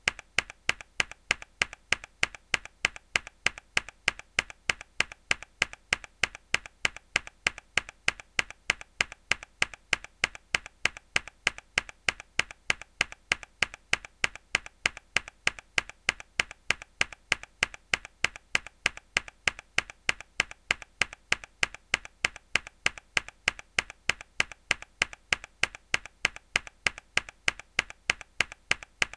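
A single hard key press on a mechanical keyboard, looped: sharp, identical clicks repeating at a steady, even pace.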